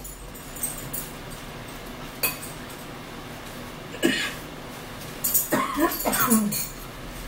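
A woman blowing her nose into a paper napkin, with several honking blows that bend in pitch, about five to six and a half seconds in. A short sniff or cough comes about four seconds in, just before.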